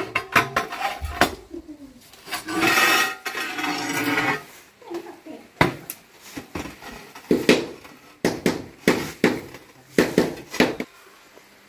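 Ceramic floor tiles being laid on a mortar bed: a string of hard clinks and knocks as tiles are set down and tapped into place, with a couple of seconds of scraping about three seconds in.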